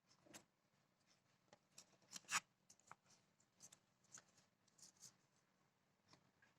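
Faint, scattered clicks and rustles of hands handling a small humidifier and its packaging, with one louder click about two seconds in.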